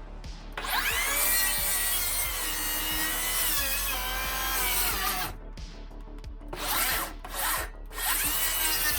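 Makita XGT HS004G 40 V cordless circular saw winding up through its soft start and cutting chipboard, its motor whine sagging a little under load, with the blade sticking in the cut, which the owner puts down to damp scrap chipboard. The saw stops about five seconds in, gives three short trigger bursts, then winds up again near the end.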